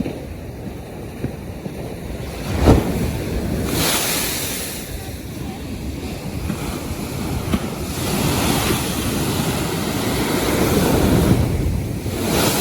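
North Sea surf: waves breaking and washing ashore in several rising and falling swells, with wind blowing across the microphone. A brief thump about three seconds in.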